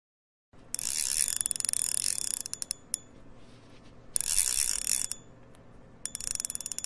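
A fishing reel's ratchet clicking rapidly in three runs of fast clicks with short pauses between. The first run slows into separate clicks as it stops.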